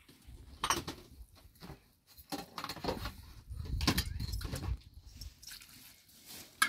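A hand mixing flour into dough in a large metal basin: irregular rubbing and scraping strokes with light clicks against the metal.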